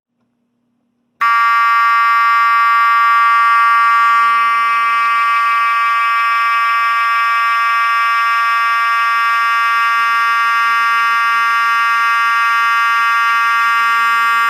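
Wheelock 34T-24 mechanical fire alarm horn switching on about a second in and sounding a loud, steady, buzzy continuous tone without a break.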